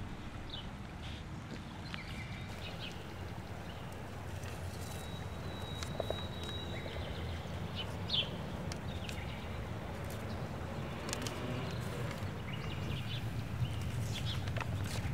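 Outdoor ambience: a steady low rumble with a few faint high chirps and scattered light clicks, the clicks coming more often near the end.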